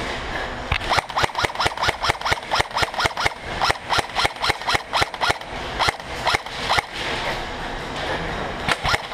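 Airsoft rifle firing rapid single shots, about three to four a second, for roughly six seconds. A few more shots come near the end.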